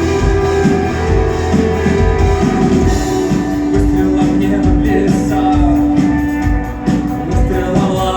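Rock song played by a band with guitars, a drum kit and a held vocal or instrumental note.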